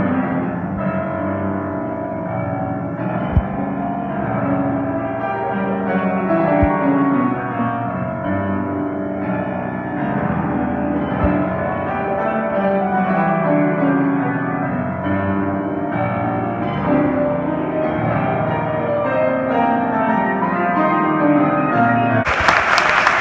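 Solo grand piano playing, dense chords and runs with sustained notes, with a sharp low thump about three seconds in. Near the end the playing stops and the audience starts applauding.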